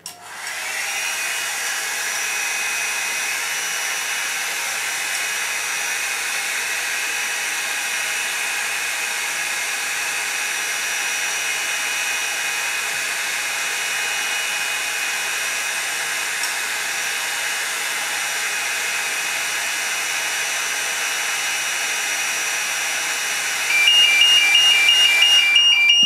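Hair dryer running steadily, blowing hot air onto an ESP FHD-1 fixed heat detector. Near the end the detector trips from the heat and the ESP Banshee BA-1W multi-tone sounder goes off, louder than the dryer, alternating rapidly between two high tones.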